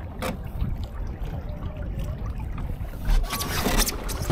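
Water splashing and lapping against a Laser dinghy's hull under sail, over a low wind rumble on the microphone. The splashing grows louder near the end.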